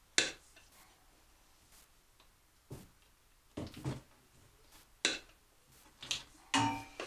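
Scattered clicks and knocks of PEX plumbing parts and tools being handled and set down, about six in all, the first just after the start being the loudest.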